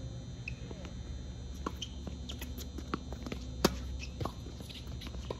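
Tennis rally on an outdoor hard court: sharp pops of the racket strings hitting the ball and the ball bouncing, the loudest strike about two-thirds of the way in, with short squeaks of tennis shoes on the court surface.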